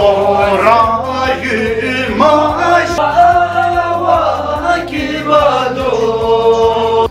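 A group of voices, men among them, singing a slow, chant-like song in unison with long held notes.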